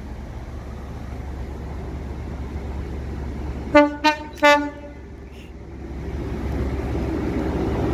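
Class 43 HST power car's horn sounded in three short blasts, about four seconds in, over the low diesel rumble of the approaching train, which grows louder near the end.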